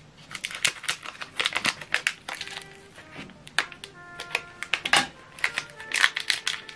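Clear plastic wrapper of an ink cartridge crinkling and crackling as it is pulled open by hand: a rapid, irregular run of crackles with a few short squeaks.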